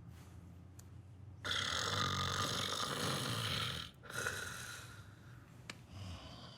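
A man snoring loudly: one long, hissing snore starts about a second and a half in and lasts over two seconds, followed by a shorter, weaker one.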